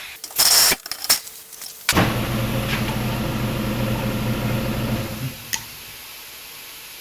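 A short loud hiss and a couple of clicks, then a motor or engine starts abruptly and runs at a steady pitch for about three seconds before stopping.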